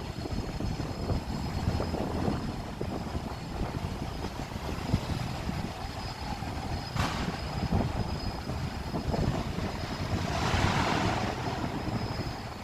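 City street traffic: a steady low rumble of passing vehicles, with a sharp click about seven seconds in and a brief rising-and-fading hiss about ten seconds in.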